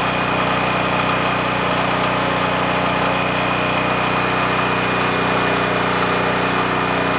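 Generac GP3250 portable generator's engine running at a steady, even speed, with a thin high whine over it.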